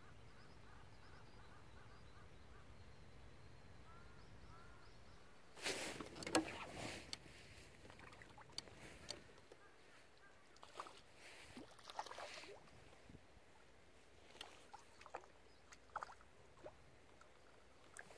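Water splashing close by, loudest about six seconds in, followed by scattered small splashes and light knocks. Before it, only a faint steady outdoor background.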